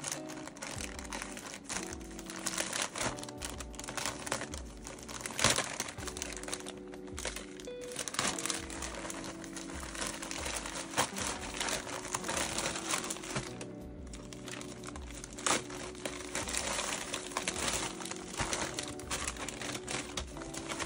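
Plastic mailer bag crinkling and rustling as it is slit with a small cutter, torn open by hand and the bubble-wrapped parcel inside pulled out, with sharp crackles now and then.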